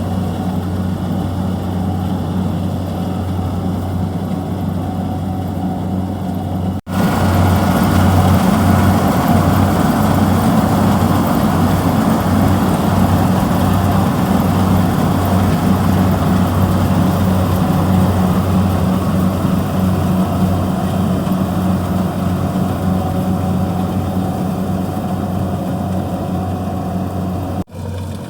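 Kubota DC-70G rice combine harvester's engine and machinery running steadily with a deep hum. The sound drops out for an instant about seven seconds in and returns louder, then drops out again near the end.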